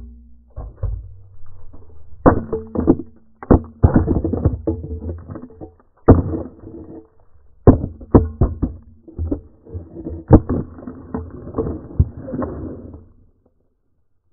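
Background music with sharp percussive hits over a low steady tone, ending abruptly about a second before the end.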